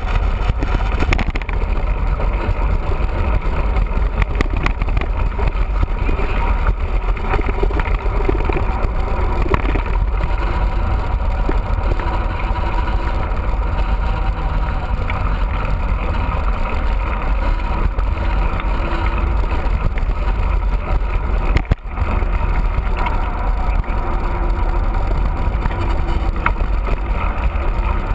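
Steady wind rumble on the microphone of a camera riding along on a moving mountain bike.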